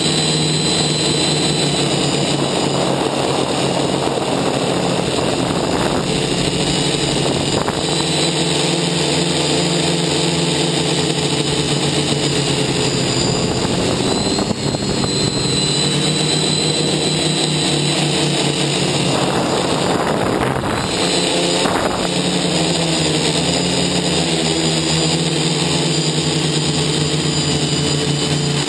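Multirotor drone's electric motors and propellers buzzing steadily in flight, heard up close from the onboard camera. The pitch drifts up and down as the throttle changes, over a rush of air noise.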